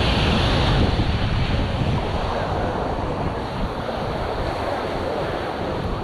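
Ocean surf breaking and washing up the sand, with wind buffeting the microphone in a low rumble. The hiss of the wash is strongest in the first second or so, then eases slightly.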